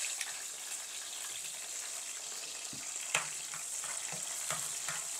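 Green chillies frying in hot oil in a frying pan, a steady sizzle while a spoon stirs them, with one sharp click about three seconds in.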